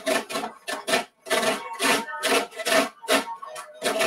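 A lemon rubbed hard up and down a large cheese grater, its rind rasping off as coarse zest in quick strokes, about three a second.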